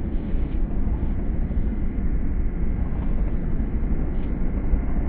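Wind buffeting the microphone: a steady, loud low rumble that flutters in level.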